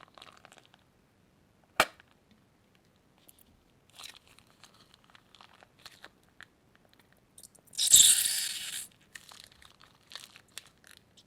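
Crinkling and crunching as plastic bags and crunchy slime are handled. There is a sharp snap about two seconds in, scattered crackles, and a loud crackling rush lasting about a second near the end.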